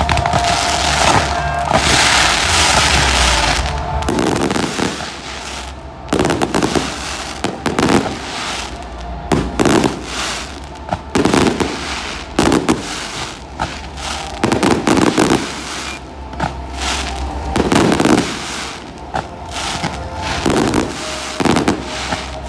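Fireworks going off: a dense crackling hiss for the first few seconds, then a quick series of bangs and crackles, about one or two a second.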